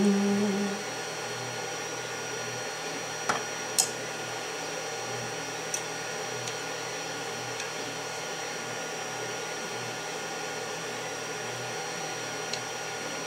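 Steady low room hum under a few light metallic clicks and taps from handling aluminium extrusion, a steel bracket and bolts. The two clearest clicks come close together about three and a half seconds in, with fainter ones later.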